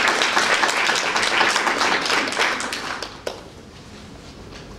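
Audience applauding: dense clapping that thins out and dies away about three seconds in, with one last lone clap.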